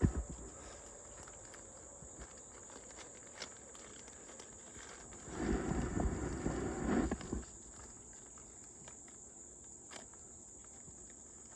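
Quiet outdoor background with a steady, high insect drone. About five seconds in there are two seconds of rustling and scuffing, and there is a single click near the end.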